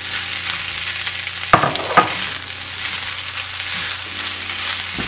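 Fried rice sizzling in hot oil in a pot as it is stirred, with two sharp knocks of the stirring utensil against the pot about one and a half and two seconds in.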